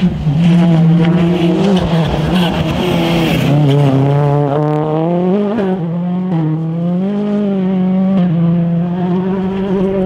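Ford Fiesta RS WRC rally car's 1.6-litre turbocharged four-cylinder engine running hard, its note rising and dropping several times through gear changes and throttle lifts. A hiss of spray off the wet road is heard over the first few seconds.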